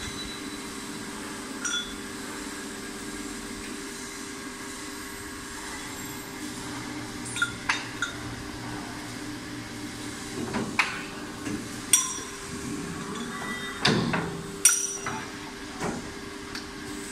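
Rotary PVC shoe injection moulding machine running with a steady hum, with irregular sharp metallic clanks and clinks as its shoe moulds are handled. The clanks come more often in the second half.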